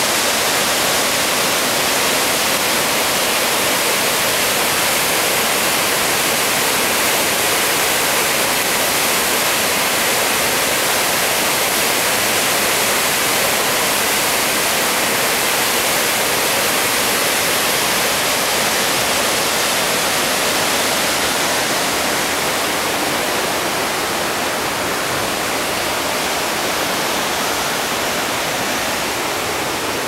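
Steady roar of a large waterfall and its rapids on the Mekong: a dense, even rush of white water, easing slightly in the last several seconds.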